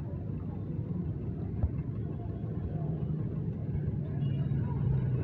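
Steady low rumbling background noise with a faint hiss above it, and a single click about one and a half seconds in.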